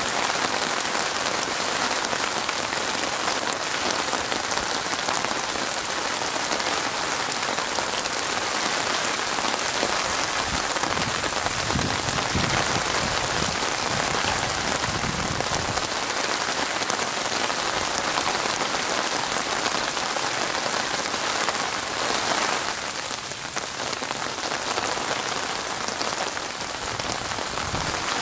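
Steady rain falling on a water surface, a dense, even hiss of countless drops, with a soft low rumble for a few seconds near the middle.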